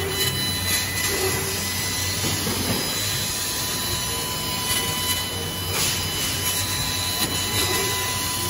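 CNC laser cutter cutting 6 mm steel plate: a steady hiss from the cut and the assist gas with a thin, steady high whine over it.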